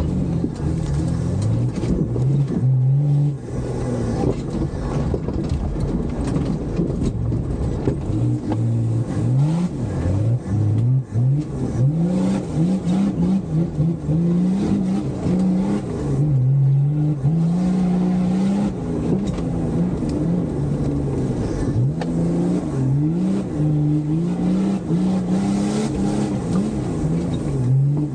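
Toyota off-road 4x4's engine revving hard, heard from inside the cab, its pitch climbing and dropping again and again as the driver accelerates through mud. Mud clods and bumps knock and spatter against the body throughout.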